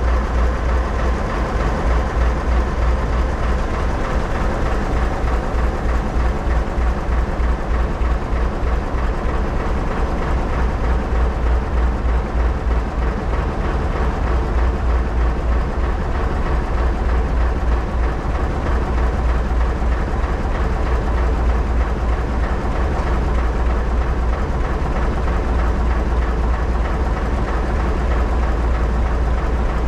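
Pacific National 48 class ALCO locomotive's six-cylinder diesel engine idling, a steady deep throb.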